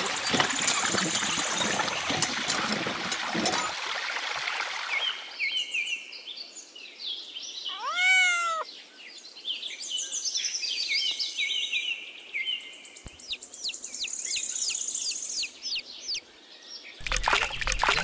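Water pouring and splashing for the first few seconds, then birds chirping, with one drawn-out call that rises and falls about eight seconds in; water pours again near the end.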